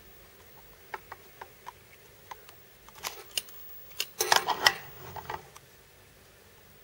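Light clicks, about five of them over a second and a half, then a louder cluster of clicks and rustling about four seconds in: handling noise close to the microphone as the camera is moved.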